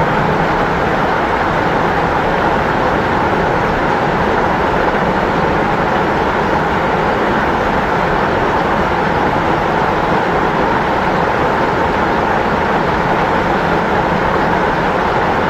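Natural waterfall: water falling and splashing in a loud, steady rush.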